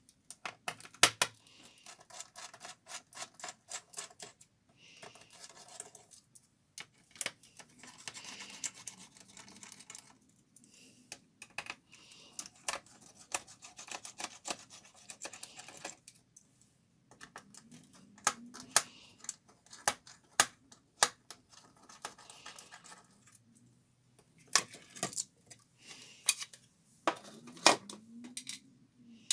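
A screwdriver loosening the screws of a Dell Studio 1535 laptop's hard-drive bay, then the hard drive being slid and lifted out of the bay. The sound is irregular sharp clicks, some in quick runs, with scraping of metal and plastic and a few louder clicks near the end.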